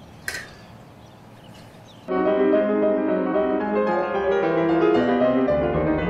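Quiet for about two seconds apart from one brief sharp sound near the start, then piano music starts suddenly and plays on, several notes at a time.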